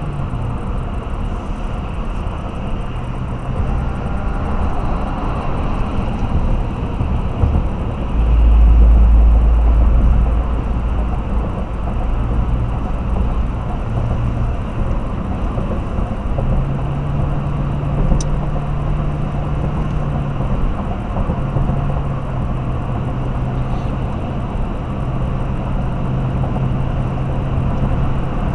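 Vehicle driving at highway speed: steady road and engine noise, with a low engine drone that shifts pitch a few times. A deeper rumble swells about eight seconds in and fades a few seconds later.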